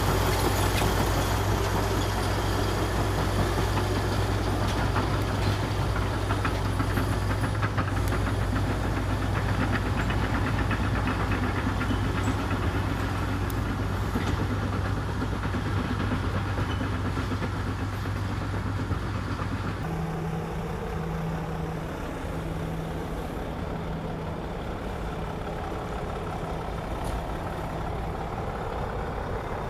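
Heavy earthmoving machine's diesel engine running steadily with a low drone. About twenty seconds in, the sound changes abruptly to a quieter engine note, pitched a little higher.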